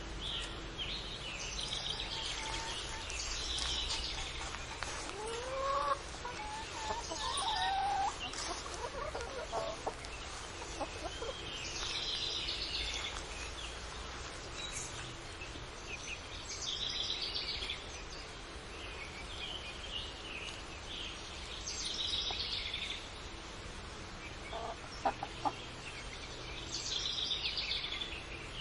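Chickens on a farm clucking and calling, with a flurry of high-pitched calls every few seconds and a few lower rising calls early on. A couple of sharp clicks come near the end, over a steady low background rumble.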